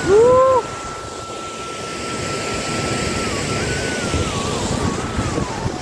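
Steady roar of a rushing river and waterfall below, mixed with wind on the microphone. A short, loud cry that rises and falls comes in the first half second, and a thin whistling tone holds steady over the noise, then wavers up and down near the end.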